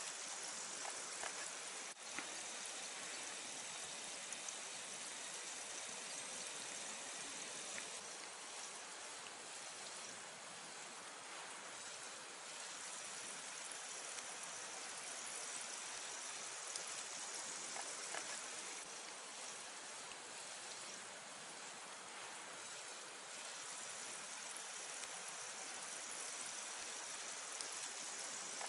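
A wood campfire crackles now and then, with a few sharp pops, over a steady, even hiss.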